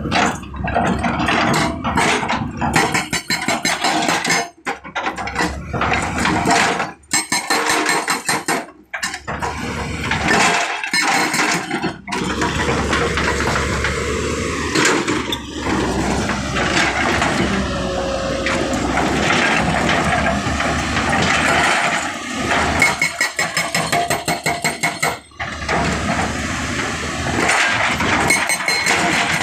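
JCB JS205 tracked excavator running, with its hydraulic rock breaker hammering on stone in rapid blows. The sound cuts out briefly several times.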